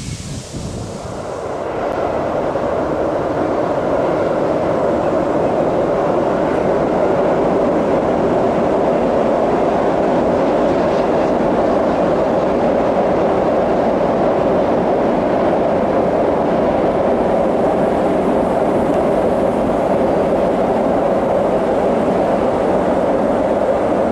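Passenger train crossing a steel truss railway high bridge: a loud, steady rumble that swells over the first two seconds and then holds.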